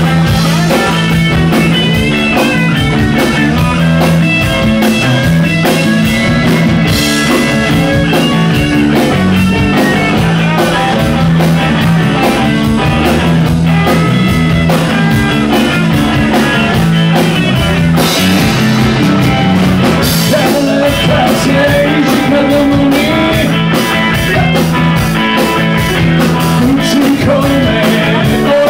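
Live rock and roll band playing loudly: two electric guitars, electric bass and a drum kit, with steady drum and cymbal beats.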